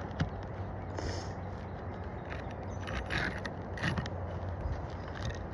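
Hand work on asphalt roof shingles: scraping and rustling, with a few light knocks and taps, one sharp knock near the start, over a steady low hum.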